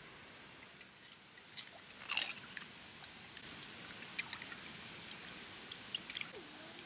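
Metal cutlery being rinsed and rubbed by hand in shallow lake water: a scattered series of small clinks and scrapes, loudest about two seconds in.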